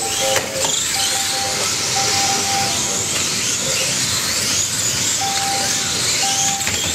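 Several Kyosho Mini-Z 1/27-scale electric RC cars racing, a steady hiss of tyres on carpet with the thin high whine of their small electric motors rising and falling. Short steady beeps recur every second or so, and a few sharp clicks about half a second in.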